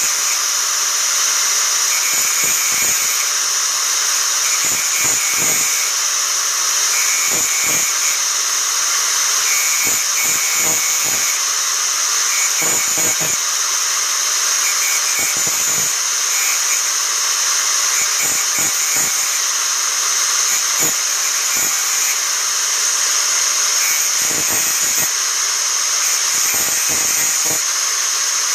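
Angle grinder running steadily while grinding the teeth of an old saw blade: a continuous high hiss and whine, with brief changes in tone every second or two as the disc works tooth by tooth.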